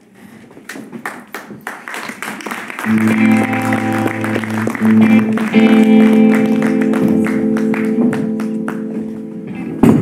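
Audience clapping. About three seconds in, live music with electric guitar comes in with held chords and gets louder while the applause goes on.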